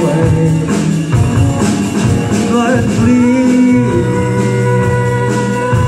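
Live rock band playing: distorted electric guitars, bass and drums with cymbals, and a singer's voice over them.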